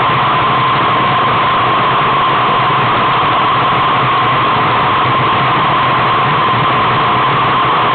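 Steady, loud rushing of wind on the microphone of a camera riding on a moving bicycle, with a steady tone running through the hiss.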